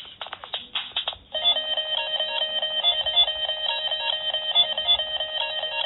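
A quick run of sharp clicks, then, about a second in, a dense electronic beeping starts: many stacked tones repeating quickly and evenly, like a phone ringtone.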